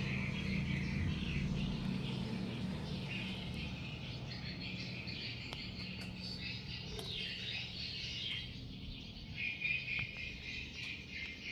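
Birds chirping and insects trilling, with a low steady hum underneath that fades over the first few seconds.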